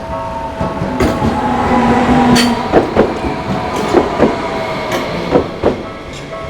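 Tokyu Setagaya Line train passing over the level crossing, its wheels clicking over the rail joints in pairs about every second and a quarter. The crossing's warning bell keeps ringing with it.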